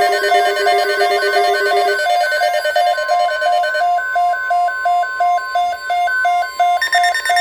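Emergency alert tones from EAS and weather-radio receivers sounding together: electronic beeps pulsing rapidly and evenly at two pitches. A steady low tone under them stops about two seconds in, a steady mid-pitched alarm tone joins about a second later, and a higher pulsing beep starts near the end.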